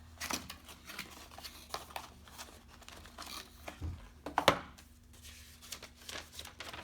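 Packaging and small parts being handled: rustling and crinkling with scattered light clicks, and one sharper knock about four and a half seconds in.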